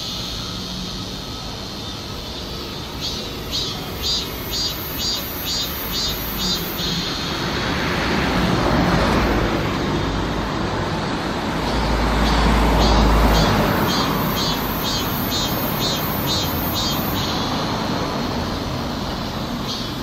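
A cicada calling in a pulsing rhythm of high buzzy pulses, about two a second. In the middle the pulses fade under a broad rushing noise that swells twice, with a deep rumble about twelve seconds in, and the pulses return near the end.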